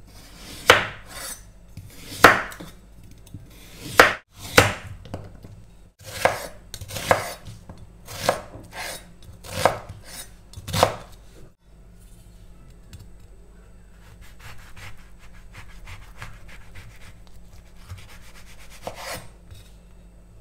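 Large chef's knife chopping carrots and onion on a wooden cutting board: a string of sharp knocks as the blade hits the board, about one a second for the first half. After that the cutting goes quieter and softer, with one more knock near the end.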